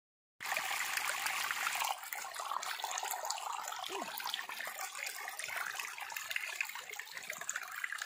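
Small stream trickling and splashing over rocks in a steady rush of water, a little louder for the first two seconds.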